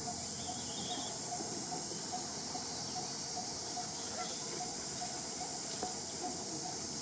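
Steady high-pitched insect chorus droning in tropical woodland, with a faint regular ticking call about twice a second.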